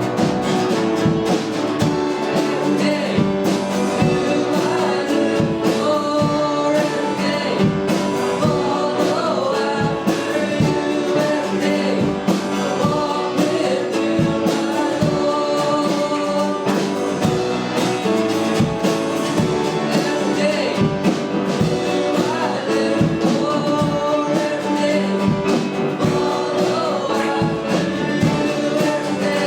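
Worship song: voices singing over instruments, with a steady beat.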